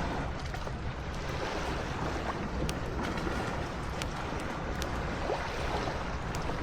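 Ocean waves washing on a beach, with wind rumbling on the microphone and a few light clicks.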